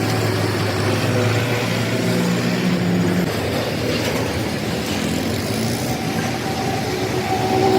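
Metalworking machine running steadily: a low hum with held tones that shift in pitch about a third of the way in and again near the end.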